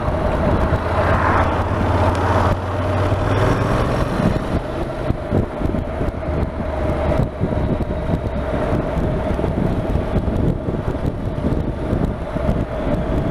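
Honda NC750X parallel-twin engine running as the motorcycle rides along, with wind noise on the microphone. A steady low engine tone for the first few seconds gives way to a rougher, fluttering rumble.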